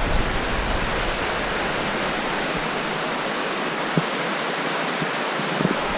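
Waterfall's rushing water: a loud, steady, even hiss.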